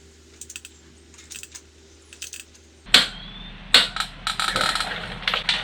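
Hand tools working on a motorcycle's front axle nut and pinch bolts: light metallic clicks and clinks, a sharp clank about three seconds in, then a stretch of quick rattling clicks.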